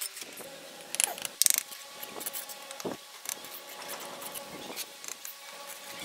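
A steel mason's trowel scraping and clinking against bricks and wet mortar, with scattered knocks as bricks are set into the mortar bed. The loudest is a quick cluster of sharp scrapes about a second to a second and a half in.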